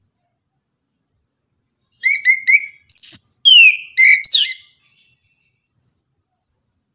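Chestnut-capped thrush (anis kembang) singing one loud burst of quick whistled notes about two seconds in, lasting under three seconds, with a long falling whistle in the middle. A faint single note follows near the end.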